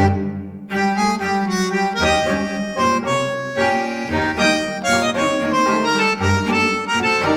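Background music: a melody on a reedy instrument like a harmonica or accordion over a bass line.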